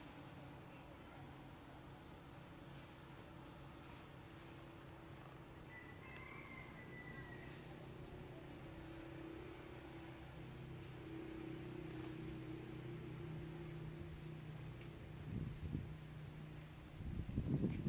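Steady high-pitched drone of insects, with a faint low hum beneath it and a few soft knocks or rustles near the end.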